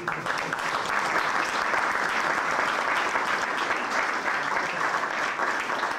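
Dinner guests applauding, a room full of steady hand clapping that starts just as the thanks end.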